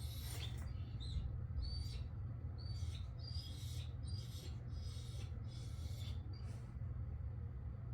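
A Labrador whining in a run of short, high-pitched squeaks, roughly one every half second to a second, stopping near the end, over a steady low hum.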